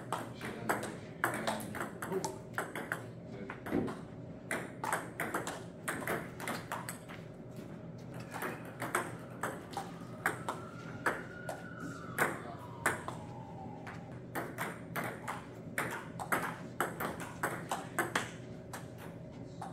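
Table tennis rally: the ball clicking back and forth between rubber-faced paddles and the tabletop in quick, irregular runs of sharp ticks, with brief breaks between points.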